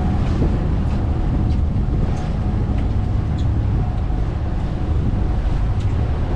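Cruise boat's engines running with a steady low rumble and a faint hum, heard from on board.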